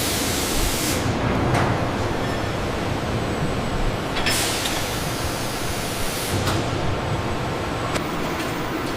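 Steady factory machinery noise, with a brief hiss at the start and another about four seconds in.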